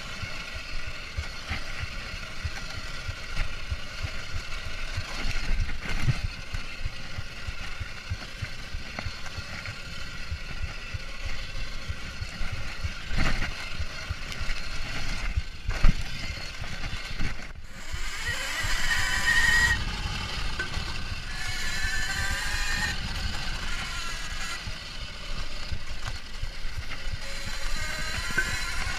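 Kuberg Ranger electric dirt bike riding fast over a forest trail: the electric motor's high whine rises and falls in pitch with speed, over a constant low rumble of wind and rough ground, with a few sharp knocks and rattles as the bike hits bumps.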